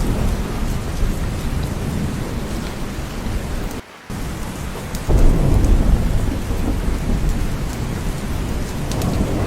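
Steady heavy rain with a low rumble of thunder underneath. The sound cuts out for a moment near the middle, then a louder roll of thunder comes in about five seconds in.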